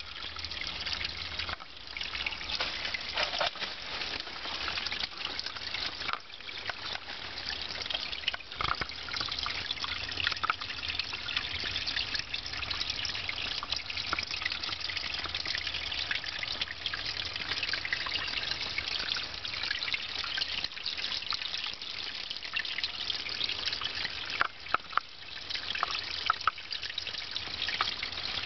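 Spring water trickling and splashing steadily over mossy rock into a small pool. A few sharper clicks come near the end.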